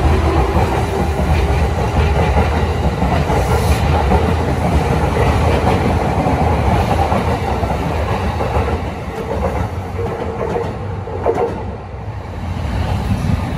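Electric commuter train pulling out, its cars rolling past with the clickety-clack of wheels over the rail joints. The sound eases off from about nine seconds in as the last car passes, then picks up again near the end.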